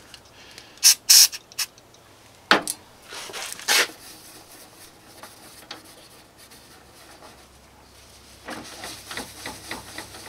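Two short hisses of an aerosol can of carburetor cleaner sprayed onto a rag, followed by a couple of sharp knocks. Near the end, a cloth shop rag rubs quickly back and forth on a plastic headlight lens.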